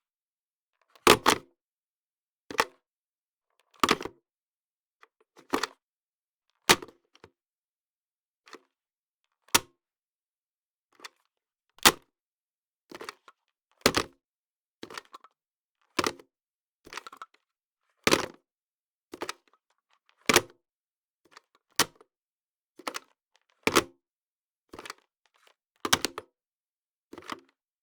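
Telephone handsets being picked up and hung up over and over: sharp plastic clicks and clunks of the handset and cradle hook switch, about one every one to two seconds, some in quick pairs.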